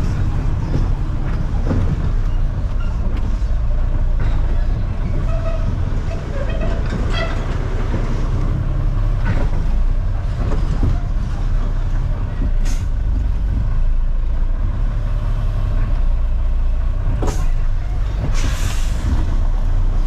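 A truck's diesel engine running with a steady low rumble, heard from inside the cab as the truck moves slowly. A couple of sharp clicks come late on, and near the end there is a short hiss of air.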